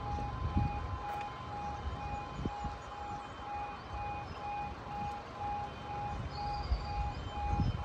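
Level crossing audible warning alarm sounding an even pulsing tone, about two beeps a second, heard from inside a car waiting at the crossing over a low engine and road rumble.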